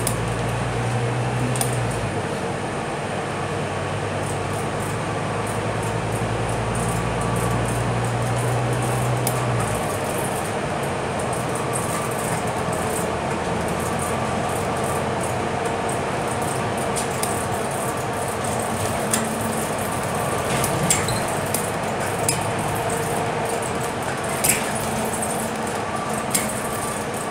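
Cabin noise of a Scania K320UB city bus with a Volgren Optimus body driving along: steady engine and road noise, with a low drone that drops away about ten seconds in. A few short sharp rattles and clicks come in the second half.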